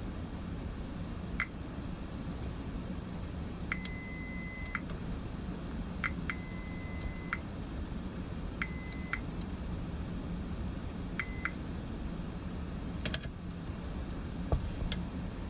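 Digital multimeter continuity beeper: a high steady beep sounding about six times, two of them about a second long and the rest brief, as the probes are touched to points on a switching power-supply board. The beep signals a short or very low resistance between the probed points, here during a search for shorted transistors. A few light clicks of the probes come near the end.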